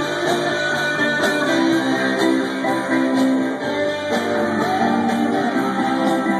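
Live band playing an upbeat dance tune, with strummed guitar and a steady beat.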